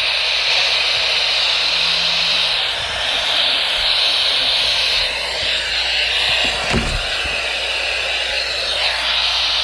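Steady radio static hiss from a receiver picking up a weak or absent signal. A brief low knock comes about seven seconds in.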